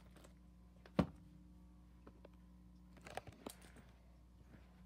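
Handling noise over a steady low hum: one sharp knock about a second in, then a short run of faint taps and clicks around three seconds.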